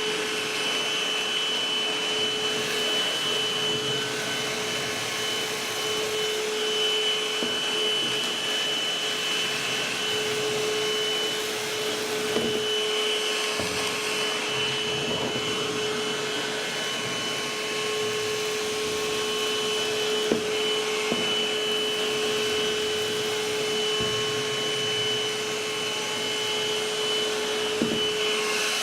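Battery-powered Novete handheld wet and dry vacuum cleaner running steadily, its motor giving a constant whine over a rushing hiss of suction as it picks up cereal and flour, with a few brief clicks.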